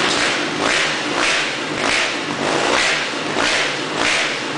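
Motocross dirt bike engine revved in quick repeated throttle blips, about three every two seconds.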